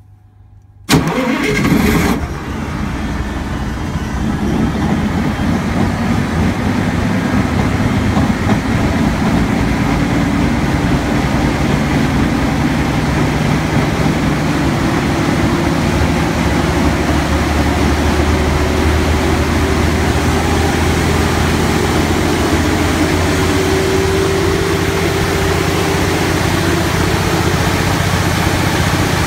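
Cummins NT855G6 inline-six diesel engine of a 275 kW generator set starting up from cold: it fires about a second in with a brief loud burst, then settles into steady running, with a tone in its sound slowly rising in pitch as it comes up to speed.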